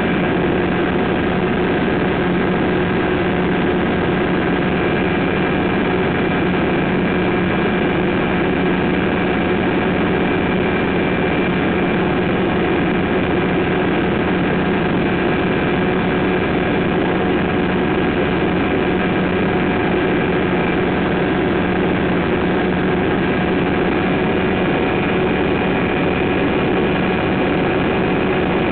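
Ultralight aircraft ('pou du ciel') engine and propeller running steadily in level cruise, heard from inside the cockpit as an unchanging drone with a few steady tones over a rushing noise.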